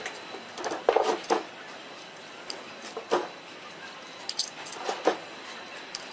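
Hands working the wire leads and lacing cord on an electric motor stator's copper windings: a few irregular bursts of rustling and light clinks over a steady background hiss.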